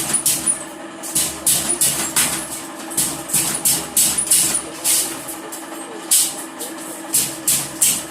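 Mini spot welder joining wire for an animal cage: short, sharp bursts about two to three times a second, one for each weld, over a steady hum.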